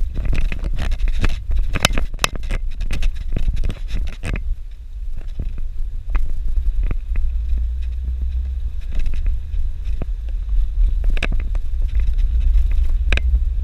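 Suzuki Jimny driving on a dirt road: a steady low engine drone with a jumble of crackles and knocks from stones under the tyres and rattling bodywork, busiest for the first four seconds and again near the end.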